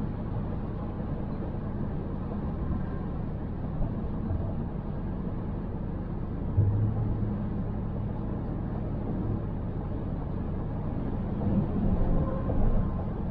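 Steady road and engine noise of a car driving, as picked up by a dash camera, with a low rumble that swells about six and a half seconds in.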